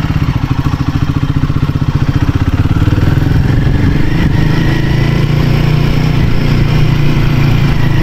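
Royal Enfield Himalayan 450's single-cylinder engine under way, chugging at low revs at first and picking up to a steadier, stronger run about three seconds in.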